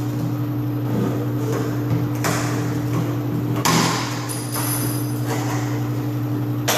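Door lever-lock hardware being handled: a few sharp metal clicks and knocks, one a little past two seconds, one near four seconds and one at the end, over a steady low hum.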